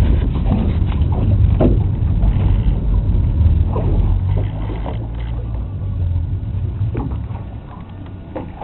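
Fishing boat's twin engines running with a steady low rumble, louder in the first half and easing off about halfway as the boat maneuvers on a hooked sailfish.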